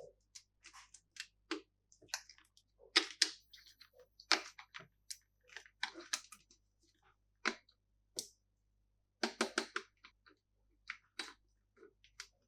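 Plastic candy packaging being handled and opened: irregular crinkles, clicks and taps, with a few louder clusters of crackling.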